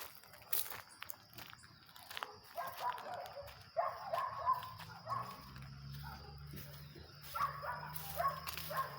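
An animal making short, mid-pitched sounds in several brief bouts, with frequent sharp clicks throughout and a low steady hum from about halfway.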